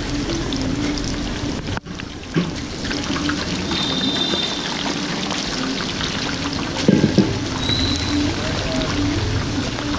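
Chekkalu (rice-flour crackers) deep-frying in a kadai of hot oil: steady sizzling and bubbling. Brief knocks stand out about two and a half seconds in and again around seven seconds.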